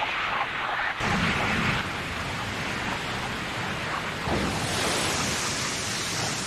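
Cartoon sound effect of a Chidori lightning technique: a dense, steady electric crackle and rush that fills out about a second in and again after about four seconds.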